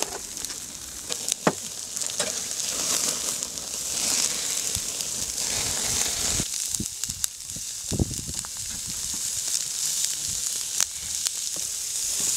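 Meat sizzling on a wire grill over wood-fire embers: a steady hiss with a few sharp clicks and pops scattered through it.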